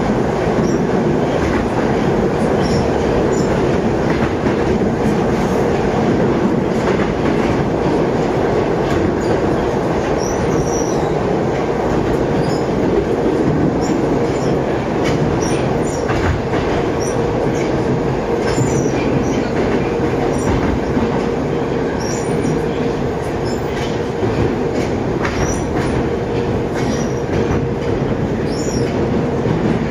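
81-775/776/777 "Moskva 2020" metro train running steadily through a tunnel, heard from inside the car: a continuous rumble of wheels on rails with a faint constant hum and scattered light ticks.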